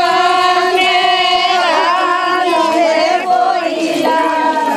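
A group of voices, mostly women's, singing together in long held, wavering notes, like a chanted folk or devotional song.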